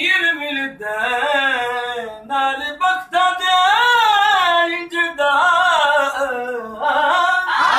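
A man singing a qasida unaccompanied, in several drawn-out phrases whose pitch bends and wavers, with short breaks for breath between them.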